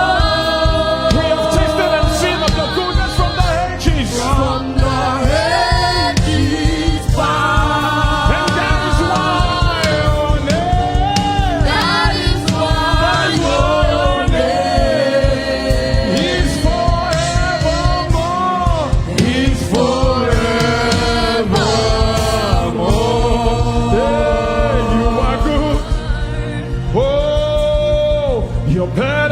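Gospel praise band and choir performing: sung vocal lines with choir over a full band with a steady beat.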